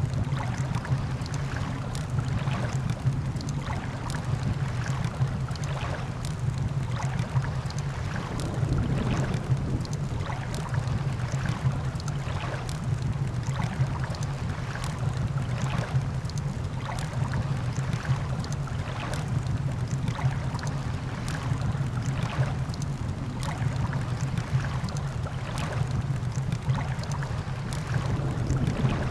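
Campfire crackling, with sharp irregular pops one or two a second, over a steady low rumble of surf.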